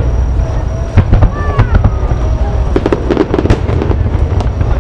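Aerial fireworks display: shells bursting in a rapid barrage, sharp bangs one after another over a continuous low rumble, coming thicker about three seconds in.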